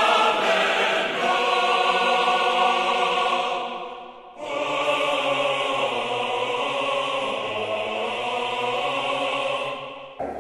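Choral music: sustained sung chords in two long phrases, the second starting about four seconds in and fading out near the end.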